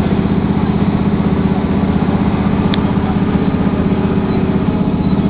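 Train engine running with a steady, fast-pulsing low drone, heard from inside the carriage.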